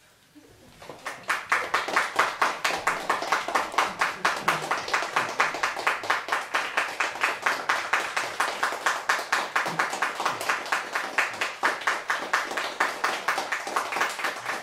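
Small audience applauding, building up about half a second in and then going on steadily as dense, rapid clapping.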